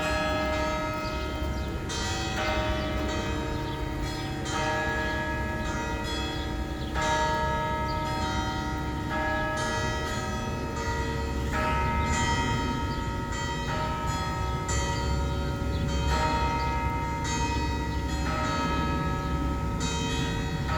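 Church bells ringing: several bells of different pitch struck one after another, a new strike about every two seconds, their ringing tones overlapping and hanging on between strikes.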